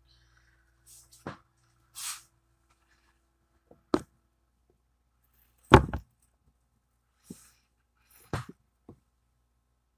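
Scattered knocks and clicks of things being handled at an open refrigerator. The loudest is a thump about six seconds in, with a short rustle near two seconds.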